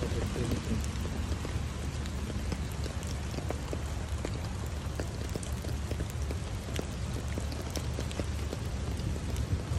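Steady rain, with many separate drops ticking close by, over a constant low rumble.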